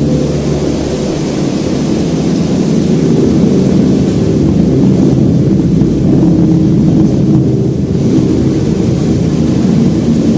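Loud, deep engine-like rumble played through the loudspeakers of a Lamborghini sound show, steady and heavy in the bass, with little above it.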